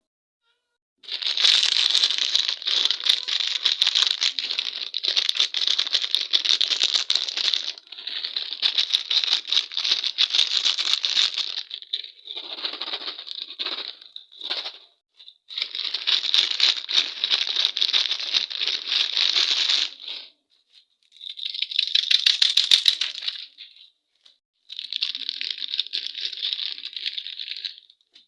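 Candy and its packaging being handled: dense rattling and crinkling in bursts of a few seconds, broken by short pauses.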